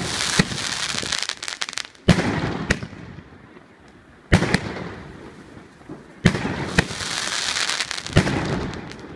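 Lucky Fireworks 724-shot firework cake (mixed 30, 38 and 50 mm calibre) firing: a sharp bang about every two seconds, each followed by a second or two of crackling hiss.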